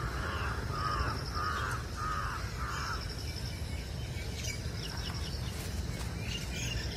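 A bird calling, about six repeated calls at roughly two a second that stop about three seconds in, with a fainter, higher pulsing call coming and going over steady low background noise.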